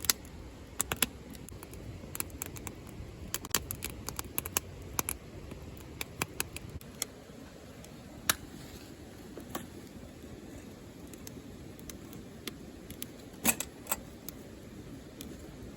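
Wood campfire crackling: irregular sharp pops and snaps over the low rush of the flames, with a few louder pops, the loudest a little before the end.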